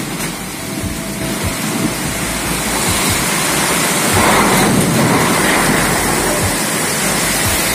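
Heavy rain pouring down in strong wind, a dense steady hiss with occasional low thumps, growing louder about four seconds in.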